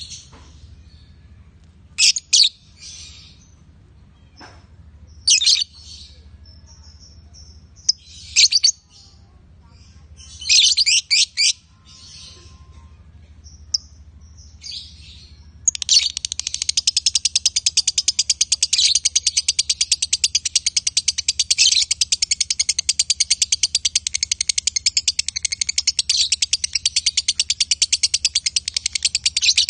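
Lovebirds chirping: short sharp chirps every couple of seconds, then about 16 seconds in a continuous rapid chattering trill that runs on without a break. This is the long unbroken chatter that lovebird keepers call 'konslet'.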